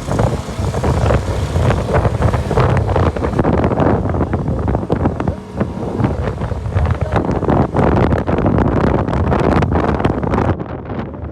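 KTM RC 200 motorcycle riding on a rough offroad track, its single-cylinder engine running under heavy wind buffeting on the microphone, with many short knocks and crackles throughout.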